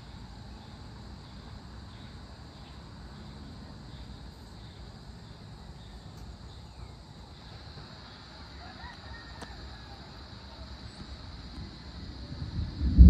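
Outdoor storm ambience: insects chirring in a steady high hiss. Over the last second a low rumble of approaching thunder begins to build.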